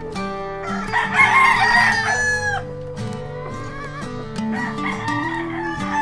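A gamefowl rooster crowing once, about a second in, the call dropping in pitch at its end, over background music with plucked guitar.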